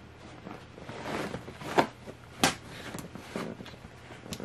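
Wirehaired dachshund in labour shifting and rooting in the whelping-box bedding: rustling of the pads and blanket, with two sharp knocks close together near the middle.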